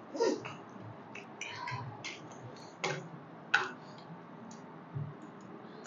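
People eating: scattered, irregular small clicks and crunches of chewing and handling food, about a dozen over several seconds.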